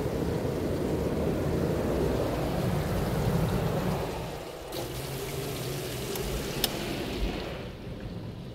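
Automatic car wash heard from inside the car: water spray and a spinning foam brush swishing against the body and glass, with the wash machinery running. About halfway through the heavy low rush lets up, two sharp clicks follow, and near the end the noise fades as the car leaves the bay.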